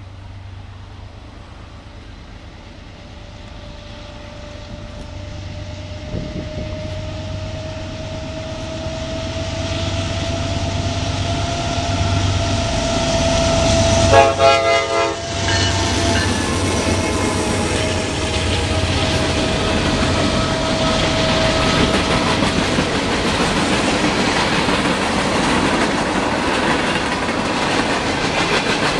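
A freight train led by two Norfolk Southern GE C40-9W diesel locomotives approaches and passes. The locomotives' steady, high whine grows louder and rises slightly in pitch as they near, and is loudest as they go by about halfway through. After that, the freight cars roll past with a steady, loud rumble of wheels on rail.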